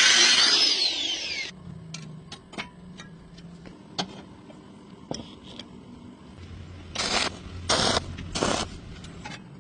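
A power tool runs with a loud hiss and spins down, its pitch falling, within the first second and a half. After that come scattered light taps and clicks, and three short scraping strokes near the end.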